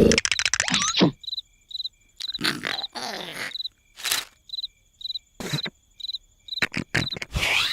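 Cricket chirps repeating in an even rhythm, about two a second, as night ambience in a cartoon, broken by several short, louder noises from the characters.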